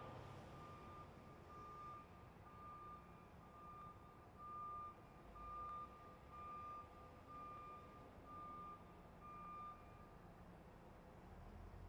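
Truck reversing alarm beeping at one steady pitch, a regular series of short beeps, louder in the middle and stopping about ten seconds in.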